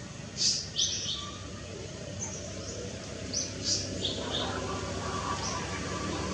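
Small birds chirping: short high chirps, a quick cluster about half a second in and more around the middle, over a steady background hiss.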